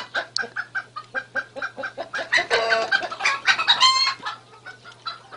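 Rapid run of short, repeated animal calls, several a second, with two louder, drawn-out calls around the middle.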